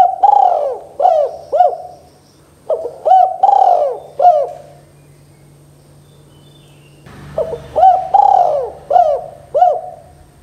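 Spotted dove cooing: phrases of several short, rising-and-falling coos, two phrases close together, then a pause of about three seconds before a third.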